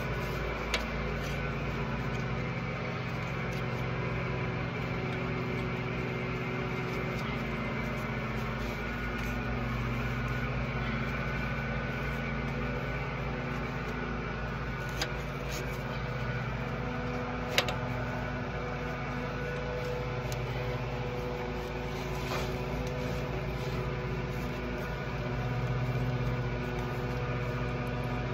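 A lawn mower's small engine running steadily in the background, swelling a little louder near the end, with a few short sharp clicks and taps from work on the sway bar link nut.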